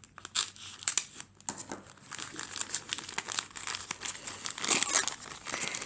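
Packaging crinkling and tearing in many irregular crackles as tape-sealed wrapping is pulled open by hand.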